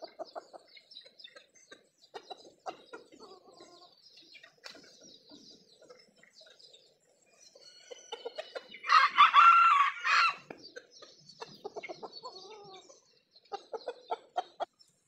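A rooster crows once, loudly, about nine seconds in, amid scattered short clucks and calls from chickens.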